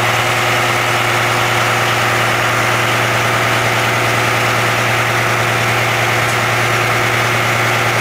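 Steady low drone of the VT 08 diesel railcar's engine, heard from the driver's cab as the railcar runs along the track.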